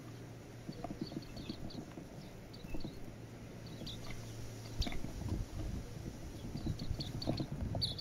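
Silvereyes pecking at a seed cake on a wooden feeder: irregular light taps and knocks, one louder knock about halfway through, with short high chirps in small clusters.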